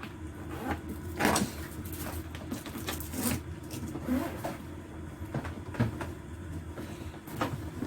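Handling noises from a hand-carry bag being shown off: a few scattered knocks and clicks, the loudest about a second in, over a steady low hum.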